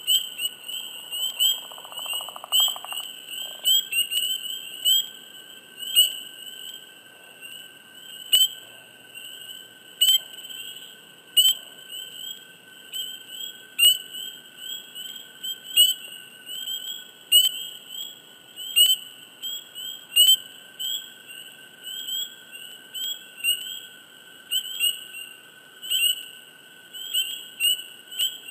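Chorus of spring peepers: many high, short, upward-slurred peeps overlapping without a break, with a steady lower tone underneath. A brief buzzy call comes in about two seconds in.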